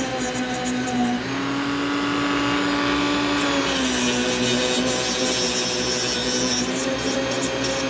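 Power drill motor running steadily while driving screws into the mounting plate, its pitch stepping down and up a little as the load changes, with a few quick clicks near the end.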